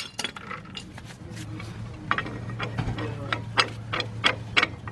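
Scattered metallic clicks and clinks of a steel C-clamp and hand tools being picked up and fitted against a brake caliper, over a low steady hum.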